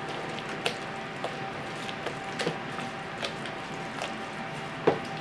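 Chopped salad filling being stirred in a bowl: soft wet mixing with irregular clicks and knocks of the utensil against the bowl, the loudest near the end, over a faint steady hum.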